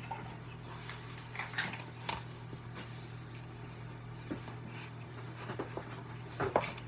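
A few light knocks and taps, scattered and brief, over a steady low hum, clustering near the end.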